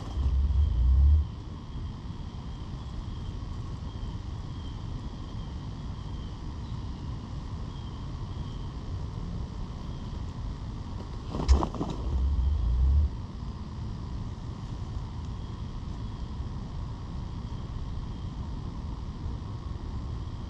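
Strutting wild turkey gobbler spitting and drumming: a sharp puff followed by a deep, low hum about a second long. The tail of one drum comes right at the start, and a full spit and drum comes a little past halfway.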